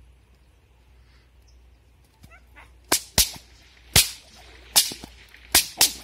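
Bullwhip cracking six sharp times over about three seconds, starting about three seconds in.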